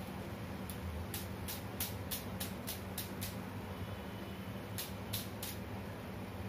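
A run of sharp metallic clicks, about a dozen in two quick bursts, over a steady low hum: a steel mesh strainer full of freshly fried boondi knocking against the kadai as the oil drains off.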